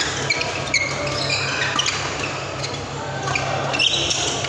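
Badminton doubles rally in a large, echoing hall: short, high shoe squeaks on the court mat and sharp racket strikes on the shuttlecock, over a steady low hum.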